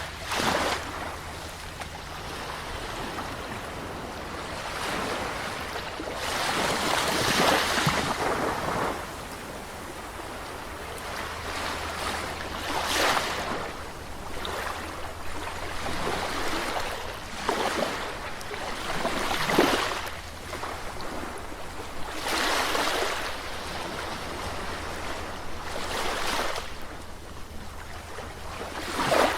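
Sea waves breaking and washing on the shore, a louder wash swelling and fading every few seconds over a continuous surf hiss.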